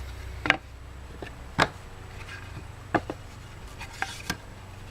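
Wooden pieces being handled and set down on a workbench: a series of irregular sharp knocks and clacks, the loudest at the end, over a low hum that stops about a second and a half in.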